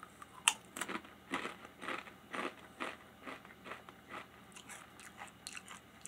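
A whole Takis Fuego rolled corn tortilla chip bitten with one sharp crunch about half a second in, then chewed with short crunches about twice a second that grow fainter as the chip breaks down.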